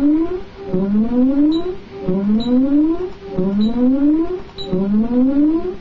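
Security system's burglar alarm siren sounding, set off by a tripped motion sensor on the armed system. It repeats a rising whoop about every 1.3 seconds, four to five sweeps in all.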